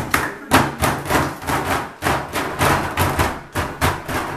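A group stamping and clapping together in a fast, steady rhythm, about four beats a second.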